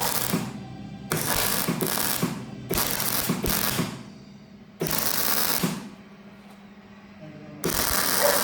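Arc welding on steel box section: short bursts of crackling arc, each about a second long, as small tack welds are laid across a gap in a poorly cut 45° mitre joint. Near the end a longer continuous weld starts, building up the joint.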